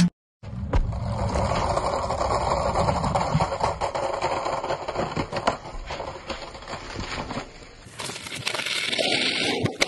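Skateboard wheels rolling over rough concrete, a steady rumble with scattered clicks and knocks as the rider falls and the board runs on, turning to a hissier scrape near the end.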